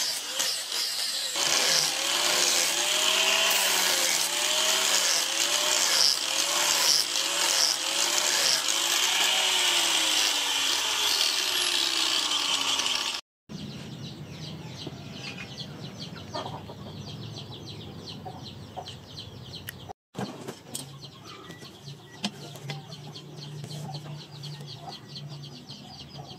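Angle grinder grinding a steel sword blade, its pitch dipping and recovering about once a second as it is worked along the blade, then winding down about twelve seconds in. After that it is much quieter: light clicks of hand work on the blade's tang, with chickens clucking.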